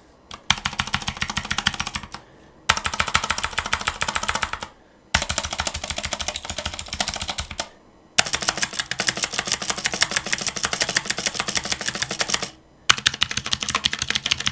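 Rapid typing on an Armageddon MKA 7C full-size mechanical keyboard, with its stock clicky Otemu Blue switches and ABS keycaps. The keystrokes come in five runs of fast, dense clicks broken by short pauses.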